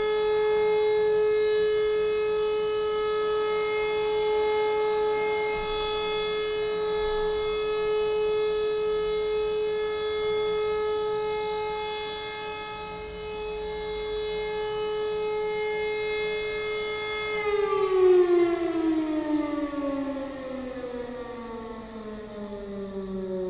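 Civil-defence siren sounding the all-clear signal: one long steady tone, then about 17 seconds in the pitch starts falling steadily as the siren winds down.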